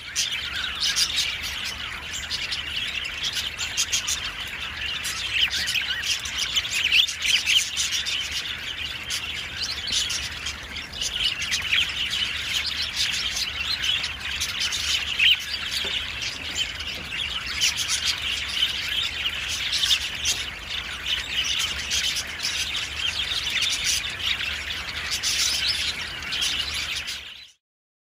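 A flock of budgerigars chattering, a dense, continuous stream of rapid chirps and warbles.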